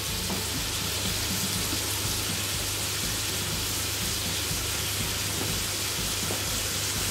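Marinated chicken drumsticks sizzling steadily as they shallow-fry in a little oil in a pan over a medium flame.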